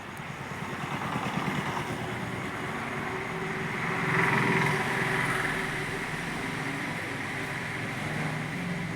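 An engine running steadily, growing louder about four seconds in and then easing off a little.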